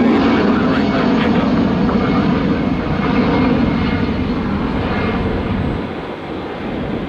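Jet engine noise of an Airbus A319 climbing out after takeoff. The noise is loud and steady, then falls off about six seconds in as the plane moves away.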